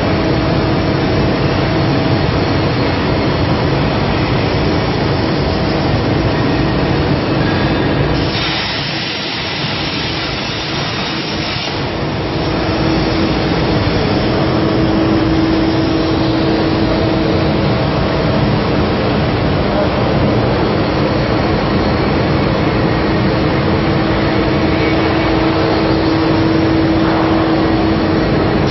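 Gantry CNC plasma and flame cutting machine running: a steady hiss under a held hum. A brighter, sharper hiss comes in for a few seconds about eight seconds in.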